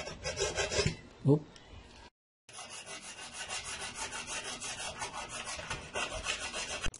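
Hacksaw blade cutting through a hard plastic GoPro tripod adapter, quick repeated back-and-forth scraping strokes. A short louder hum a little over a second in, and the sound drops out briefly near two seconds before the sawing resumes.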